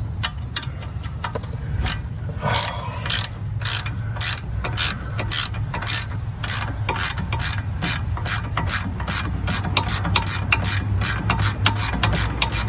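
Hand ratchet clicking in an even rhythm, about three or four clicks a second, as it backs out a 15 mm brake caliper bracket bolt. The clicking gets going about two seconds in.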